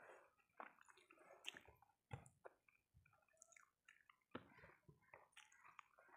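A child chewing rice eaten by hand, with irregular wet mouth smacks and clicks, and soft squishes of fingers pressing rice on the plate.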